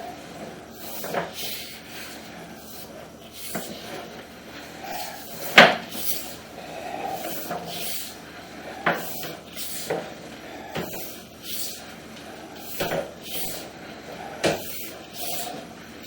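Sewer inspection camera and its push cable being fed through a drain line, knocking and scraping against the pipe in irregular sharp clacks roughly once a second, the loudest about five and a half seconds in, over a steady hiss.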